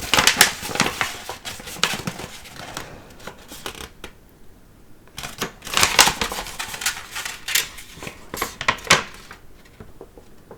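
A paper scroll being unrolled and handled, the paper crackling and crinkling in two bouts, the second starting about five seconds in.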